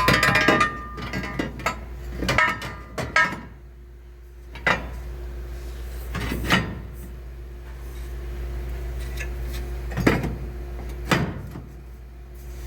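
Irregular metal clanks and knocks as a notched piece of square tubing for a subframe connector is handled and set in place, a cluster at the start, then single knocks spread apart, over a steady low hum.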